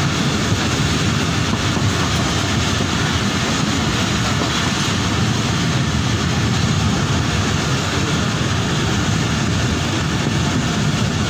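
Karakoram Express passenger train running along the track, heard from inside the carriage: a steady, loud rumble and rush of the wheels on the rails.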